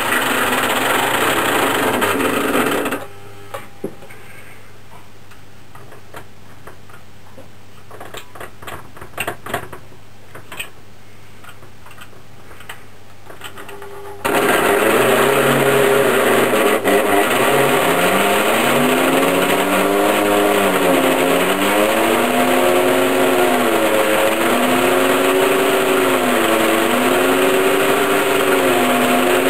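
Lionel Burro crane's small electric motor and gears whirring for about three seconds, stopping, with a few light clicks later in the pause. From about halfway through the motor runs again as the hoist lowers a hanging wheelset, its pitch swinging up and down over and over.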